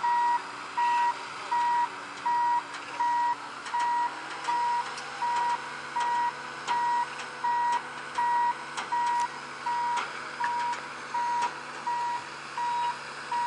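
Reversing or travel warning alarm on heavy engineering plant, sounding a single-pitched beep about once every 0.7 seconds, over the steady hum of a machine's engine running.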